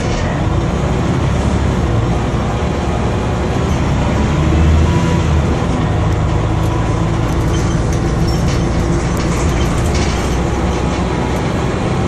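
Inside a Scania OmniDekka double-decker bus under way, heard from the upper deck: the diesel engine runs with a steady low drone over road rumble and light rattles of the body. It grows louder for a moment about four to five seconds in.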